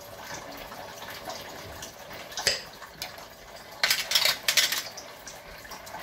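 Minced beef and carrots frying in a stainless-steel pot with a steady low sizzle. A single sharp knock comes about two and a half seconds in, and a loud crackling rush of about a second follows a little later.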